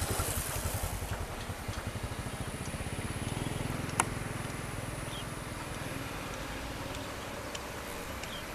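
Kobelco SK200 excavator's diesel engine running with a steady, even pulse while the machine digs and lifts a bucketful of soil. A single sharp click about four seconds in.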